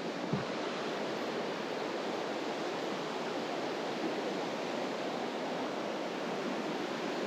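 Mountain stream water rushing with a steady, even hiss, and a short knock just after the start.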